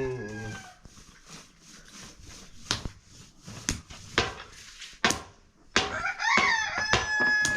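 A rooster crowing, its call rising and then held, starting about six seconds in, over a series of sharp knocks at uneven intervals.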